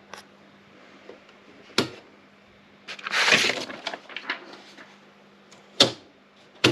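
Erika 3004 electronic typewriter mechanism: a few separate sharp clicks and knocks, with a rattling mechanical burst of about a second in the middle, over a steady low hum.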